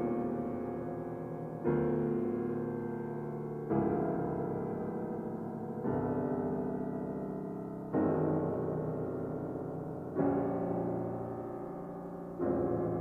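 Solo piano playing slow, sustained chords, one struck about every two seconds and left to ring and fade before the next.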